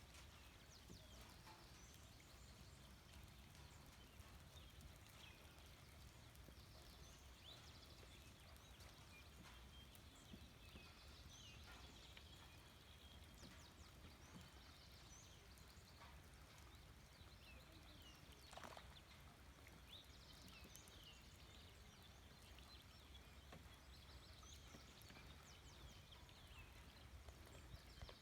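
Faint nature ambience of small birds giving short, high chirps scattered throughout, over a low steady rumble with a few sharp clicks.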